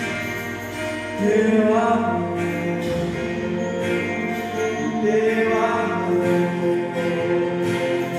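Christian worship music: singing in long held notes over sustained instrumental accompaniment.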